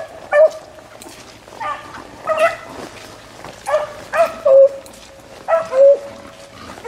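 Beagles baying on a rabbit's scent trail: a string of spaced, pitched bays, about eight of them, a couple drawn out and falling in pitch.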